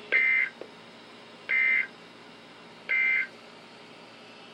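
Emergency Alert System end-of-message signal: three short, buzzy digital data bursts about a second and a half apart. These are the SAME code bursts that mark the close of the alert.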